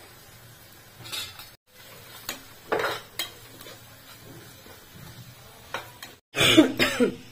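Metal spatula scraping and clinking against an aluminium kadhai as chopped onions, chillies and spice powder are stirred, in scattered strokes with the loudest run of clatters near the end.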